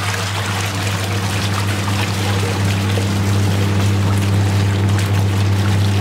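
Top-loading washing machine's wash tub running: the motor hums steadily while the agitator churns and splashes soapy water into foam.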